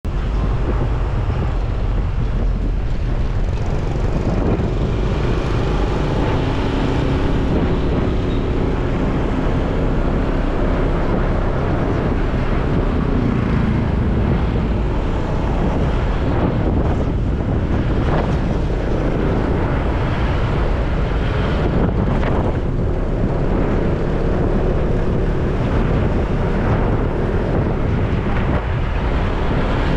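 Wind rushing over the microphone on a moving Honda PCX 150 scooter, with the scooter's single-cylinder engine running underneath, its note rising and falling a few times with speed.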